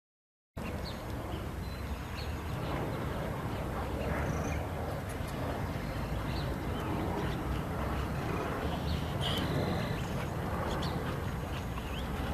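Several English bulldogs breathing heavily as they walk, with a few bird chirps over it; the sound cuts in after a moment of silence at the start.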